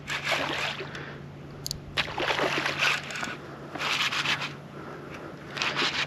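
Water sloshing and splashing in about four separate bursts around a kayak while a hooked fish is fought on a bent rod.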